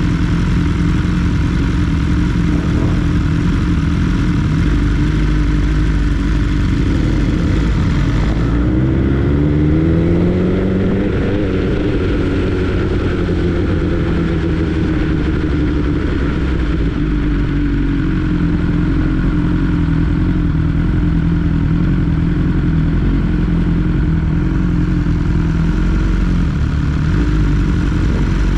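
BMW S 1000 R motorcycle's inline-four engine running steadily under way. About eight seconds in it accelerates, climbing in pitch for a couple of seconds, then eases off and settles back over the next several seconds.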